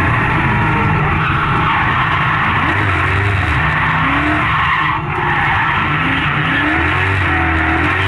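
Heard from inside the cabin: a BMW E36 drift car's swapped Chevrolet LS1 V8, modified to about 600 hp, pulls hard and revs while the rear tyres spin and skid through a drift. The level dips briefly about five seconds in.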